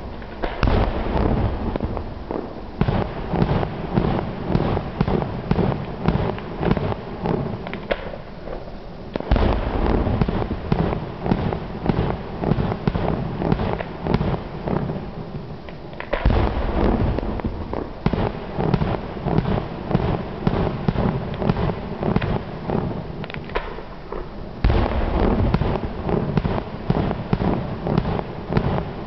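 Fireworks going off in a rapid, continuous barrage of bangs and crackles. Fresh, louder volleys start about a third of the way in, just past halfway, and near the end.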